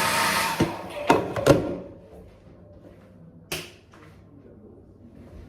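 A hair dryer running, then switched off about half a second in, its blowing noise dying away. A few sharp knocks or clicks follow, three in quick succession and one more a couple of seconds later.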